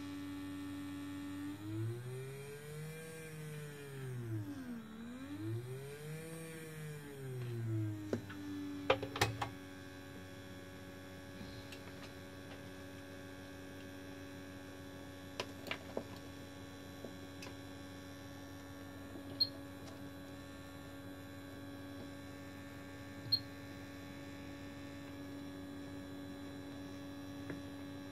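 Small brushed DC motor on a variable-speed controller running with a steady whine whose pitch rises and falls twice as its speed is turned up and down with the potentiometer, then holds at one speed. A few sharp clicks come over it, the loudest about nine seconds in.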